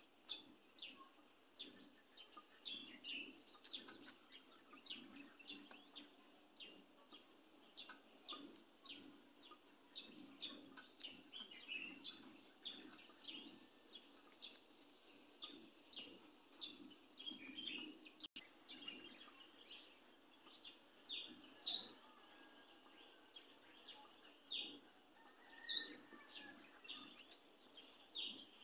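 Whiteboard marker squeaking against a whiteboard while words are written: an irregular run of short, faint, high squeaks, one or two a second.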